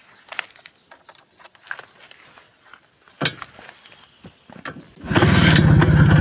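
Clicks and scrapes of the IZh two-stroke motorcycle being handled, then its engine starts about five seconds in and runs steadily at idle.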